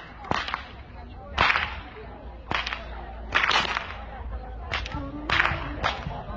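A long whip cracking over and over, a sharp crack about once a second.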